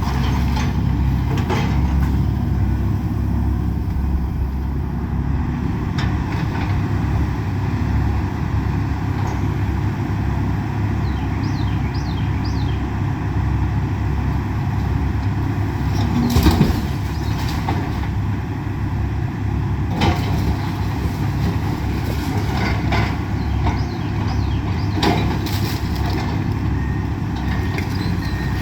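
Excavator's diesel engine running steadily during a house demolition, with scattered knocks and crashes of the structure being broken up; the loudest crash comes about sixteen seconds in.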